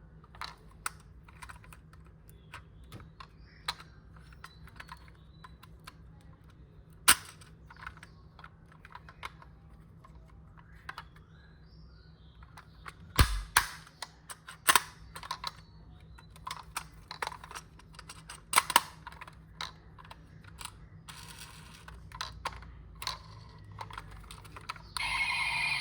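Irregular light clicks and taps of a diecast model car and its plastic and cardboard packaging being handled, with one louder knock about halfway through.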